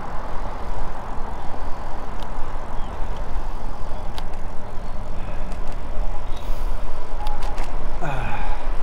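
Steady wind rush on the microphone and road noise from a road bike riding along a street with car traffic, with a few light clicks.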